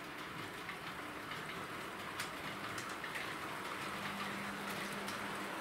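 Model passenger train running on track laid over cork: a steady rolling rumble of wheels on rail with a faint motor hum and a few light clicks, growing slightly louder as it approaches. It runs smoothly, which the owner puts down to the cork.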